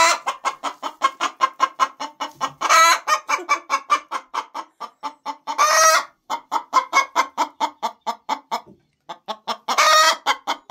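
A hen cackling: a rapid run of clucks, about five a second, broken every few seconds by a long, loud squawk.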